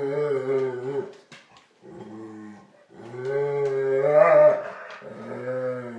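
Airedale terrier vocalizing while being petted: a series of long, low, pitched growling sounds, about four of them with short breaks between. The third rises in pitch and grows loudest about four seconds in.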